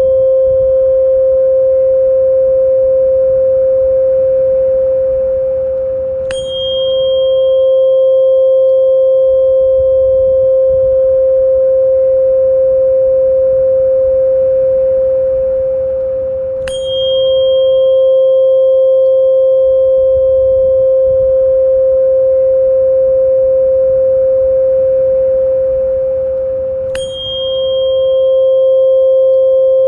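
A loud, steady electronic pure tone of the kind played as tinnitus sound therapy, with fainter higher tones and a low rumble beneath. Three times, about every ten seconds, a sharp click and a brief dip in level break the tone.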